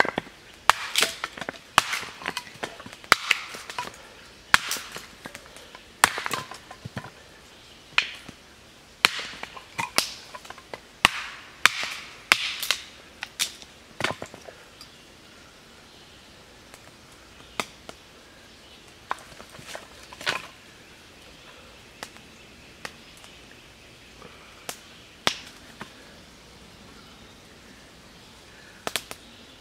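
Hatchet chopping and splitting cedar into small pieces: quick, irregular strikes through the first half, then only occasional single knocks.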